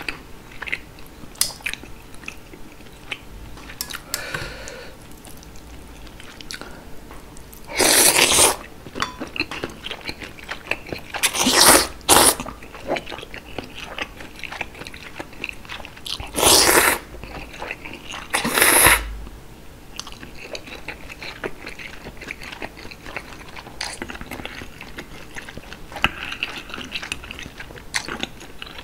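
Close-miked eating of chewy noodles in spicy broth: several loud slurps of the noodles, with wet chewing and small clicks of the metal tongs in between.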